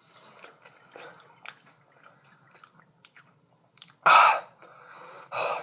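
Close-up chewing of fries: small wet clicks and soft crunches, with two louder, rushing bursts of noise about four and five and a half seconds in.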